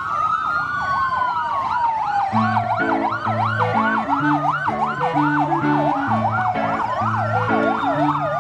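Fire truck sirens sounding together: a slow rising and falling wail overlaps a fast yelp that starts about two seconds in. A low tune of stepped notes plays underneath.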